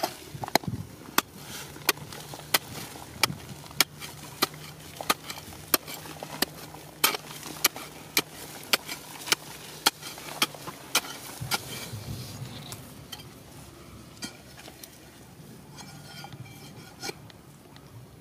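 Pointed steel digging bar stabbed over and over into hard, stony clay, a sharp metallic chink about every 0.6 seconds with loose soil and gravel trickling down. After about eleven seconds the strikes stop, leaving a few scattered scrapes and crumbling dirt.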